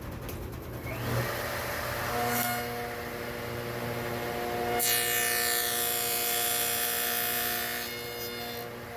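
Table saw with a dado blade spinning up and running at a steady pitch, then cutting a groove through a wooden board from about five seconds in for about three seconds, before running free again.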